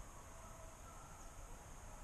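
Faint outdoor ambience of the woods: a low rumble and hiss with a steady, thin high-pitched tone, like a distant insect, and no distinct events.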